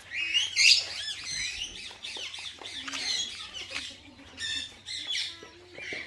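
Aviary parrots squawking: a run of harsh, shrill calls, loudest in the first second.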